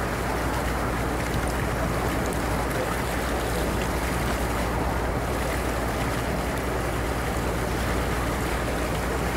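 A canal boat under way: the steady rush of water along the hull over the low, even hum of its engine.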